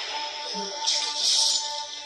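Action film's background score playing, a sustained high note under short musical figures, with a burst of bright hiss a little before the middle.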